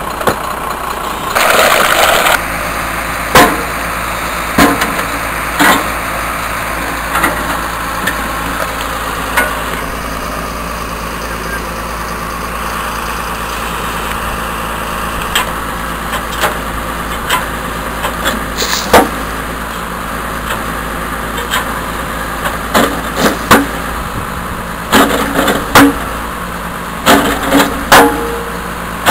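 Heavy diesel engine of a lorry or excavator running steadily, with scattered sharp knocks and clatters of stones and tools in the trench. A loud hiss lasts about a second near the start, and the knocks bunch up and get louder near the end as an excavator bucket works over the trench.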